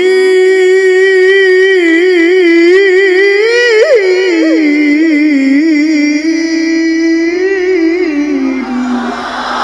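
Male Quran reciter (qori) holding one long, ornamented note in melodic tilawah, the voice wavering with quick trills midway, then sliding down to a lower pitch near the end.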